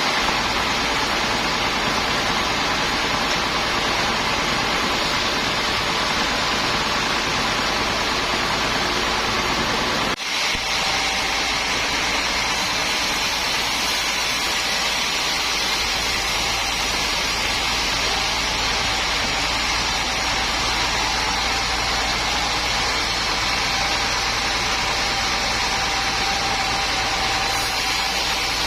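Sawmill machinery running steadily: a dense, engine-like noise with a few faint steady tones through it, and a brief dip about ten seconds in.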